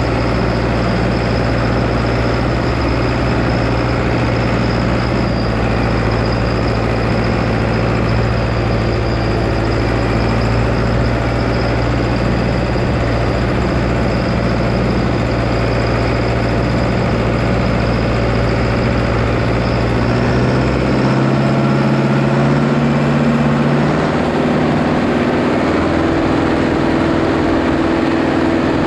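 International Harvester 844 tractor engine running steadily under load, pulling a loaded 10-tonne trailer uphill. About two-thirds of the way through the deep rumble drops away and the engine note climbs in steps as the revs rise.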